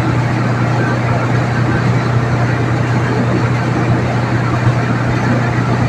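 Split-type air conditioner's outdoor condensing unit running, its compressor and fan giving a steady, unchanging low hum with a noisy whir above it, while the unit is being charged with refrigerant.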